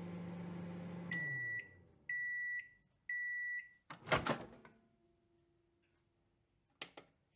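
Microwave oven running with a low hum that winds down, then three high beeps about a second apart signalling that cooking is done. The door then opens with a loud clunk, and a couple of faint clicks follow near the end.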